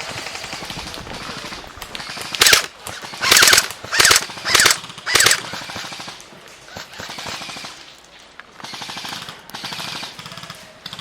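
Airsoft electric guns firing full-auto, a fast mechanical rattle that comes in bursts, with several short loud shouts between about two and five seconds in.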